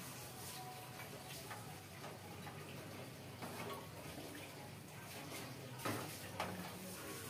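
Faint scattered ticks and light taps over a quiet background, with two sharper knocks about six seconds in.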